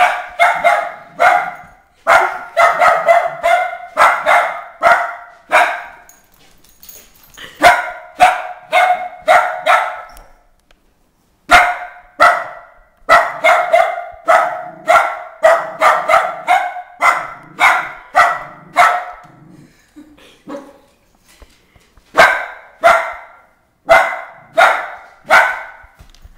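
A dog barking repeatedly, about two barks a second, in four runs with short pauses between them.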